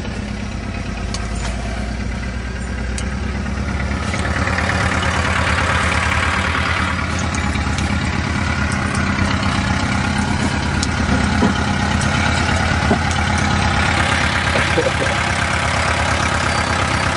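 Vehicle engines running steadily: a Mitsubishi Pajero 4x4 heard from inside its cabin as it moves over ploughed ground, together with a Ford tractor working a plough close by. The engine noise grows louder about four seconds in.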